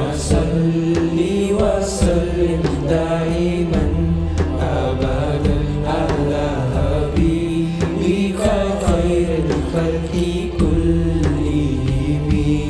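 A nasheed sung by boys' voices in a chant-like melody over a backing track with a steady beat.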